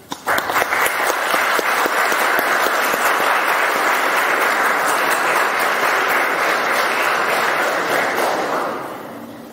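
Audience applauding: a dense patter of many hands clapping that starts abruptly, holds steady for about eight seconds, then fades out near the end.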